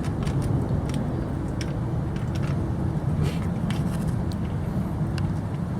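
A steady low vehicle rumble, with light clicks and taps scattered over it.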